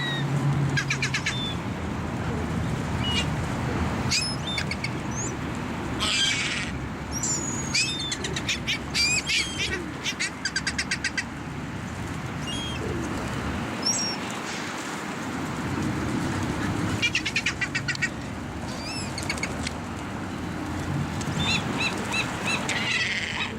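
A flock of birds gathered to be fed, chirping and calling with short high notes, with bursts of rapid wing flapping a few times.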